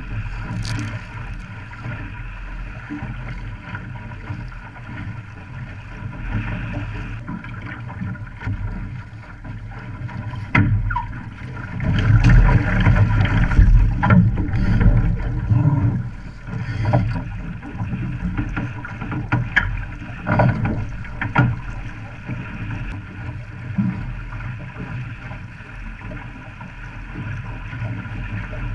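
An OK Dinghy's hull driving through choppy water under sail: steady rushing and slapping of water with sharp splashes of spray, over a deep rumble of wind on the microphone. It grows loudest from about 12 to 16 seconds in, with several more splashes over the next few seconds.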